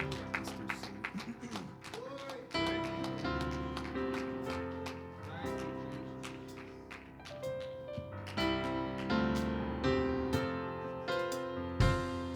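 Instrumental worship music: held keyboard chords that change every second or two over a light, steady tapping beat.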